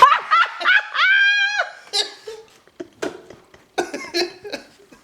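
A person laughing after a loud sneeze: a few quick rising giggles, then a high squealing laugh held for about half a second, then broken breathy giggling.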